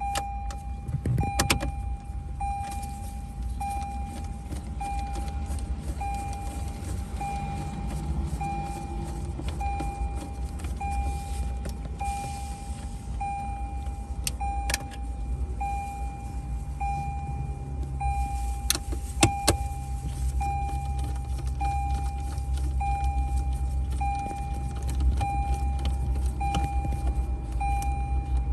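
Lexus RX's warning chime beeping steadily, one even-pitched tone about every second and a quarter, over a low steady rumble. A few sharp clicks from tools on the screen's 10mm bolts break in, the loudest near 19 seconds in.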